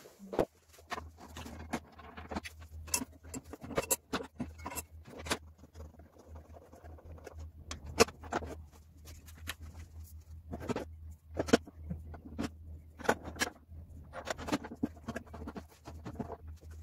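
Table saw blade being changed by hand: irregular metallic clicks, clinks and light scrapes as the blade and arbor nut are handled on the saw's arbor, over a steady low hum.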